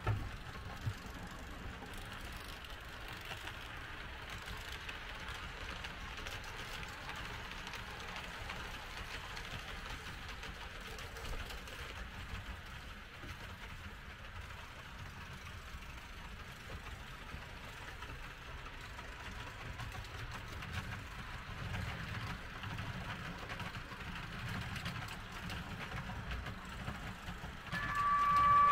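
HO-scale model railjet train running along the layout track: a steady whirr of the motor and wheels on the rails. A steady tone with a few higher overtones comes in near the end.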